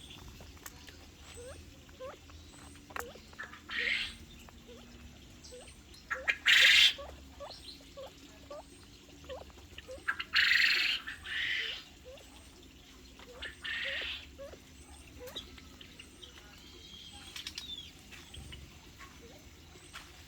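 Small birds calling: a few short, harsh squawks, the loudest about six and a half seconds in and another pair around ten to eleven seconds, over frequent quick little chirps.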